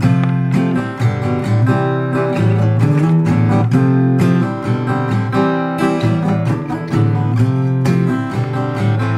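Steel-string acoustic dreadnought guitar strung with D'Addario EZ890 super light bronze strings, strummed in a steady rhythmic chord pattern. The strings sound soft and bright, with a thin bass.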